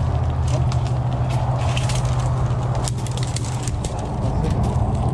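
Twigs and dry brush crackling and snapping underfoot as people push through a thicket, in many short irregular clicks, over a steady low hum.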